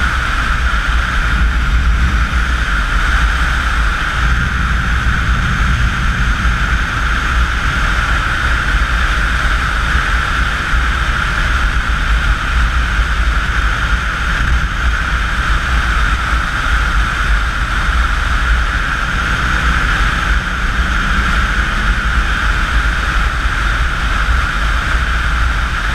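Steady wind rush buffeting the microphone of a camera on a motorcycle cruising at highway speed, with the bike's running drone underneath.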